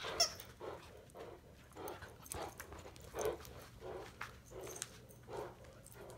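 Newfoundland dogs playing: a run of short dog sounds about twice a second, with a few sharp clicks among them.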